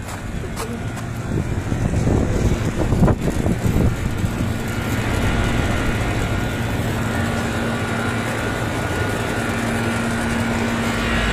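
Rooftop packaged air-conditioning unit running: a steady hum and rush of its condenser fans and compressor, growing louder over the first few seconds as the fan grilles come close, then holding even.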